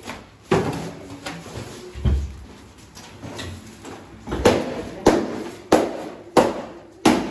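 Sharp knocks and thuds of wooden cabinet boards being struck and broken loose while a damaged kitchen cabinet is torn apart. There is a heavier thud about two seconds in, and in the second half the knocks come evenly, about one every two-thirds of a second.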